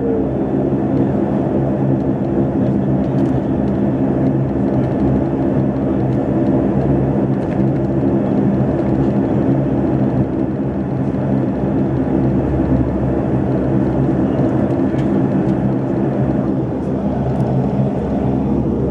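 Jet airliner's engines running steadily, heard inside the passenger cabin: a constant hum of several low tones over a rumble as the plane rolls slowly onto the runway.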